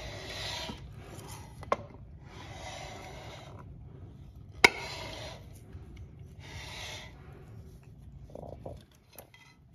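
Handling noise: rubbing and scraping in four bursts of about a second each, with a sharp click about a second and a half in and a louder click just before the middle.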